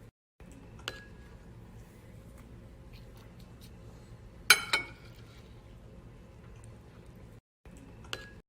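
Tableware clinking: a light clink about a second in, a loud ringing double clink half way through, and another clink near the end, over a steady low room hum.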